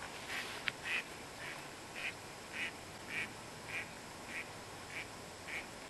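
A duck quacking in a steady series of about ten short quacks, a little under two a second. A single sharp click comes just before the first second.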